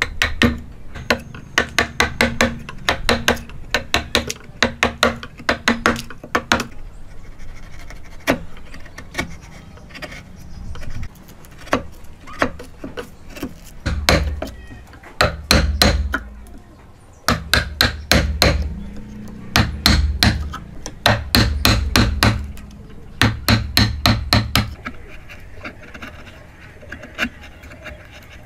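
Hammer blows on wood, in quick runs of a few strikes a second with short pauses between, stopping a few seconds before the end.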